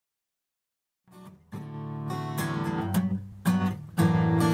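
Silence for about a second, then a steel-string acoustic guitar starts being strummed in chords.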